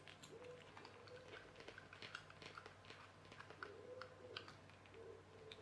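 Faint, scattered light clicks and taps of small plastic parts and screws being handled while a toy car's battery charger is put back together. A faint wavering hoot comes and goes in the background.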